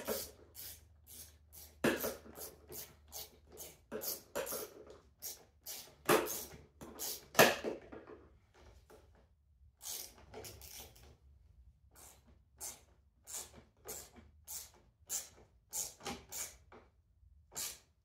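Irregular clicks, taps and clatter of hand tools and small parts being handled on a lawn mower, two or three a second. The loudest knocks come about six and seven and a half seconds in.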